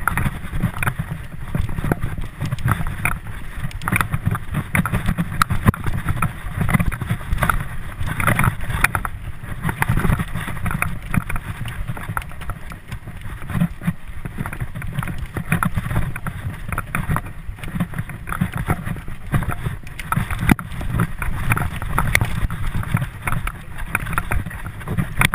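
Mountain bike ridden fast down a dirt singletrack: a steady rumble of wind on the microphone riding with the bike, broken by quick irregular rattles and knocks as the bike jolts over the bumpy ground.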